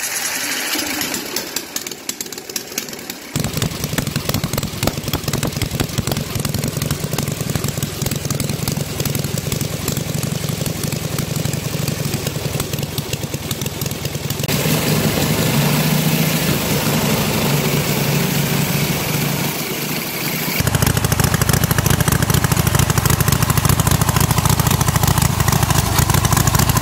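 A junior-dragster starter spins the 1911 Indian 1000cc V-twin board-track racer engine with the compression release lifting the exhaust valves. About three seconds in, the release is let go and the engine fires and keeps running. For the last several seconds it runs louder and deeper.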